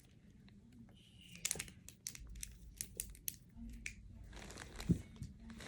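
Plastic bag and packaging crinkling as fidget toys are handled, with scattered small clicks and a single thump near the end.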